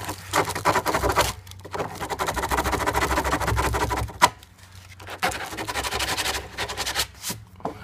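Sandpaper rubbed quickly back and forth around the edge of a drilled hole in a hollow plastic barrel, in three bouts of fast scratching strokes with a short click between the second and third. The edge is being smoothed so that the tap's washer seals watertight.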